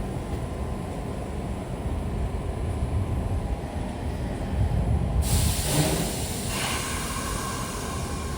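New York City subway train standing at a platform with a steady low rumble. About five seconds in, a sudden loud burst of air hiss lasts about a second and a half, then gives way to a faint steady tone.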